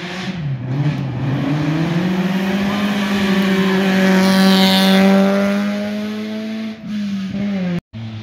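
Chevrolet Cruze hatchback rally car driving past on a gravel stage. The engine note dips briefly, then climbs and holds as the car accelerates by, with tyre and gravel hiss at its loudest as it passes. The note then falls away and cuts off abruptly near the end.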